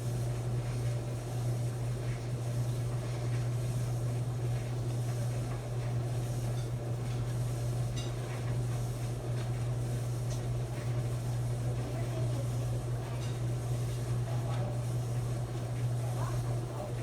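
Maytag clothes dryer running with a steady low hum.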